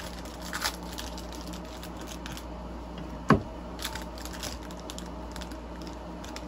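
Handling noises from trading-card packaging: light crinkling and rustling with scattered small clicks, and one sharp knock a little over three seconds in.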